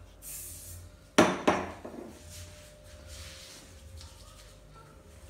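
Two sharp smacks about a third of a second apart, the first the louder, with a short ring after them, following a brief hiss like rubbing.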